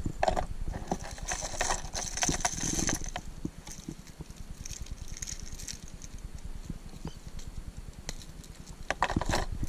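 Scattered small clicks and light rattles of fishing tackle being handled as a surface lure is swapped. The clicks are busiest in the first few seconds and again just before the end.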